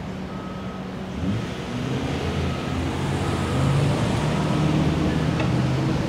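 A construction vehicle's reversing alarm beeping about once a second over a running engine, which revs up about a second in and stays louder.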